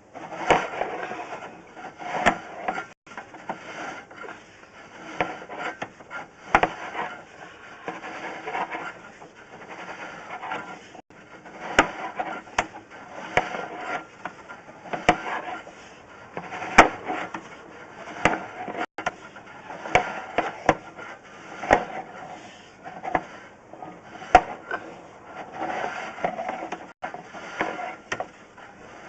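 Drain inspection camera and its push rod scraping and rubbing along the inside of a drain pipe, with irregular sharp knocks as it is fed through.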